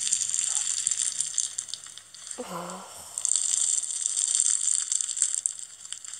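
A hand squishing into slime packed with small foam beads: dense crackling and crunching of the beads, in two spells. About two and a half seconds in, the crackling breaks for a brief voiced exclamation.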